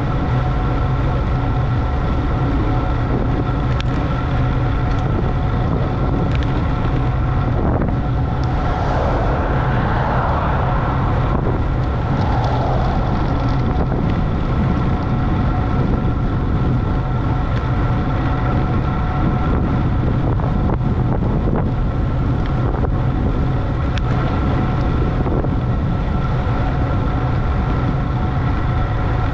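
Steady wind rush and road noise while riding at speed, with a steady hum running under it. A brief swell of extra sound comes about nine seconds in and fades by thirteen.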